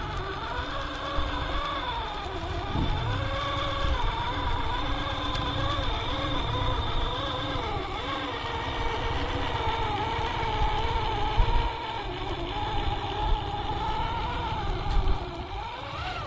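Electric motor and gearbox of an RGT EX86190 radio-controlled 4x4 crawler whining as it drives, the pitch rising and falling continually with the throttle, over a low rumble.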